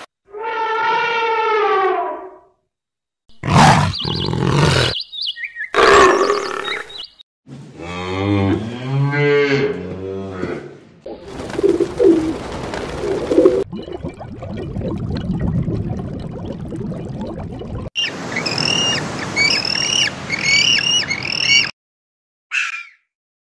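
A string of separate animal calls cut one after another, each starting and stopping abruptly: a drawn-out pitched call, several harsh cries, a long wavering call, low repeated calls, then a run of quick repeated high chirps near the end.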